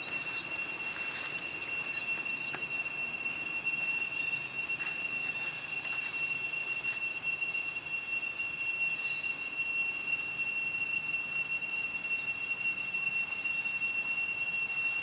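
Steady high-pitched insect drone, a continuous whine at two even pitches that does not change, with a few faint short sounds in the first couple of seconds.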